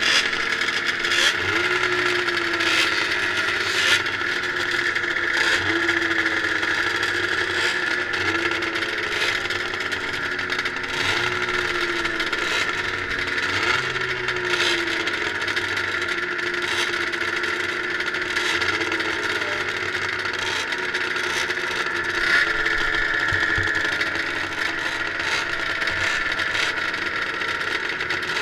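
Several vintage liquid-cooled 440 two-stroke racing snowmobiles idling together, with short rising throttle blips about every second and a half through the first half.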